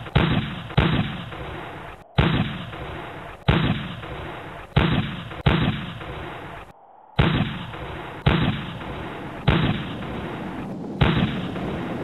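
Gunshots, about ten at uneven intervals, each sharp report followed by a short echoing decay.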